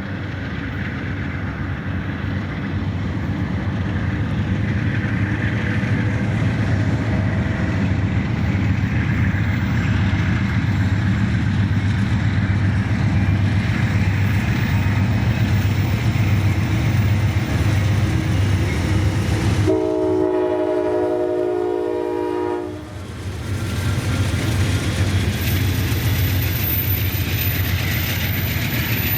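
Amtrak P42DC diesel locomotives running loud with a heavy low rumble, growing louder over the first few seconds. About twenty seconds in, the lead unit's Nathan K5LA five-chime horn sounds one steady chord for about three seconds.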